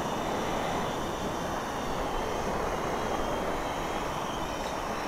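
XK X300 quadcopter's motors and propellers whining steadily in flight, a faint set of high tones, under wind noise on the microphone.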